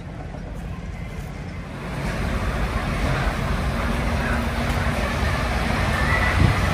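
Low, steady rumble of diesel tractor-trailer engines running, getting louder about two seconds in.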